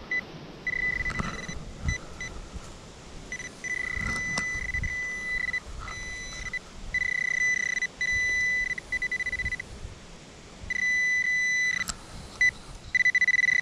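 Handheld metal-detecting pinpointer beeping in a single high tone as it is pushed into a clod of dug soil: sometimes held steady, sometimes pulsing fast, and switching on and off as it finds and loses a buried coin. Soft knocks of soil being handled come in between the beeps.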